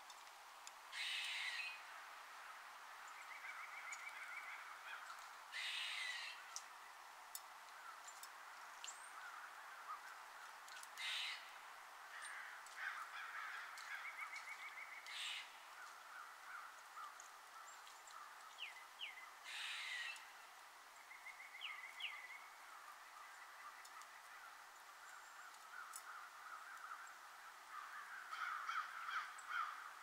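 Wild birds calling: a steady chatter of small birds, with a loud harsh caw-like call about every four to five seconds, five in all. A few short rapid trills come in between.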